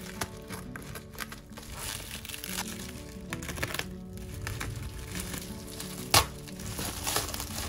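Bubble wrap crinkling and rustling as it is cut and pulled open from around a box, with one sharp snap about six seconds in. Background music plays under it.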